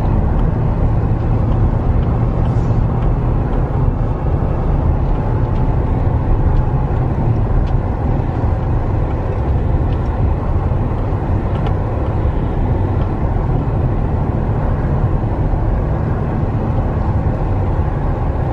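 Vehicle engine and tyre noise heard from inside the cab while driving slowly: a steady low rumble.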